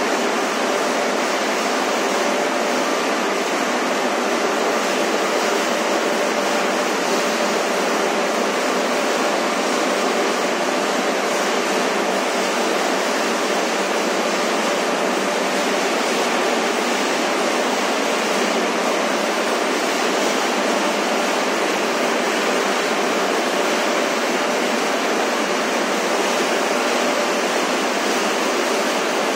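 Municipal solid waste sorting line running: a steady loud hiss of machinery with a faint constant hum in it, unchanging throughout.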